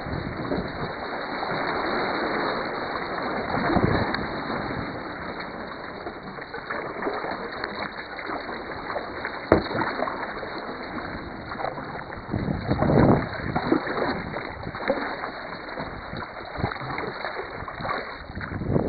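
Water splashing and sloshing around a sea kayak as it is paddled, with small waves washing against the rock walls close alongside. One sharp click about halfway through, and a louder spell of splashing about thirteen seconds in.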